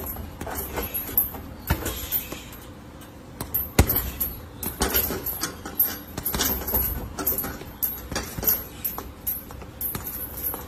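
Boxing gloves punching a hanging heavy bag in irregular strings of sharp slaps and thuds, the hardest blow about four seconds in.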